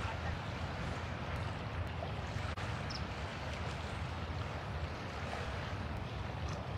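Small waves washing steadily against a sandy beach, with wind rumbling on the phone's microphone.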